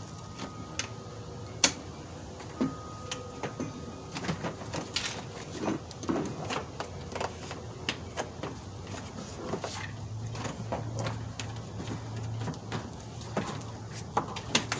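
Scattered clicks, taps and small knocks of hands working on a car door's handle cable and trim panel, with one sharper knock about two seconds in.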